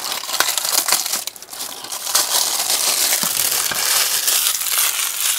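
Plastic shrink wrap crinkling and crackling as it is pulled off a model kit's cardboard box and crumpled by hand, with a brief lull a little over a second in.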